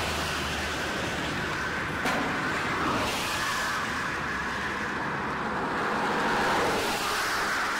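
Road traffic noise: a steady rush of passing cars that swells a little twice, with a single sharp knock about two seconds in.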